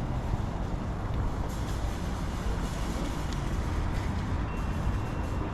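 Steady outdoor background noise dominated by a low rumble, with a few faint ticks and a brief high thin tone near the end.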